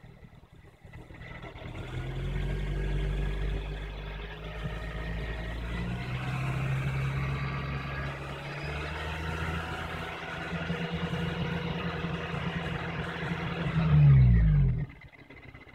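Honda Civic Si engine running, with a thin squeaking whine wavering over the engine hum; it swells louder near the end and then cuts off suddenly. The noise is worst when the car or the weather is cold.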